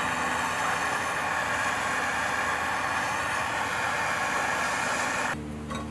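Handheld gas torch burning with a steady hiss, heating a seized rear hub nut. The hiss cuts off about five seconds in, leaving a low hum.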